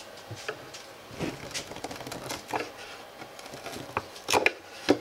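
Dull chisel scraping dried glue squeeze-out from the inside corner of a wooden drawer: a run of short, irregular scrapes and clicks, loudest near the end.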